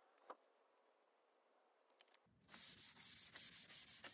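A cloth rag rubbing over a stained plywood drawer front, a dense rubbing noise of wiping strokes that starts about two and a half seconds in. Before it there is only a faint tick.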